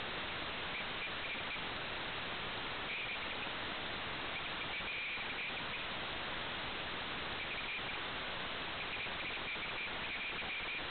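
Steady static hiss, with short runs of faint high chirping coming and going several times over it.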